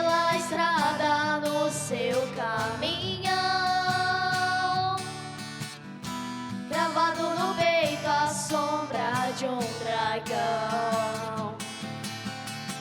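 Two boys' high voices singing a sertanejo song as a duet over acoustic guitar, holding long drawn-out notes twice.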